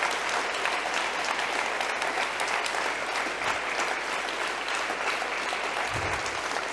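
Audience applauding steadily, many hands clapping in a dense, even patter.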